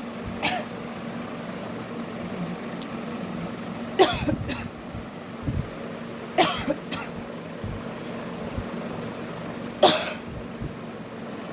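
A woman coughing in short, sharp single coughs: three loud ones, about four seconds in, midway and near the end, with a few fainter coughs between them.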